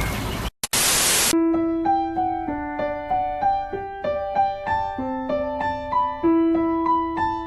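Birds chirping briefly, then a short burst of hiss about a second in, then a piano playing a melody over lower held notes.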